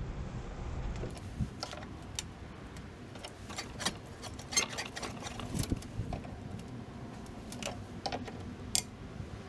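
Irregular light clicks and ticks from a push reel mower being adjusted: pliers working the bed-bar knobs and the reel turned by hand, its blades catching on the bed knife as the bar is tightened for more friction.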